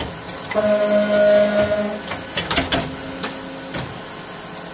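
Tsune TK5C-50GL CNC carbide-tipped cut-off saw cycling on steel bar. A steady whine lasts about a second and a half, then come several sharp clacks and knocks from the machine's feed and clamping.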